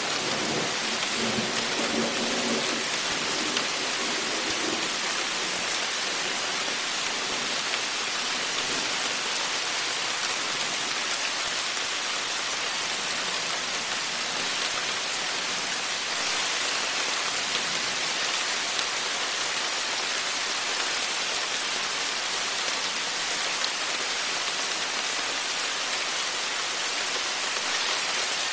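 Steady rain falling with an even hiss, with a low rumble of thunder in the first few seconds.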